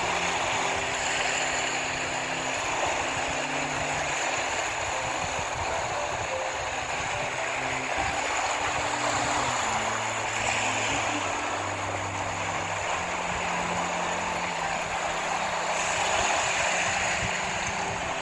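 Steady rushing of water, with low held notes underneath that change pitch every second or two.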